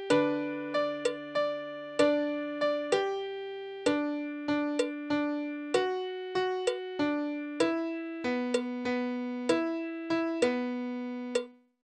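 Piano playing a slow, gentle melody at half tempo: single notes struck one after another, each ringing and fading, over two held low notes in the first four seconds. The playing stops shortly before the end.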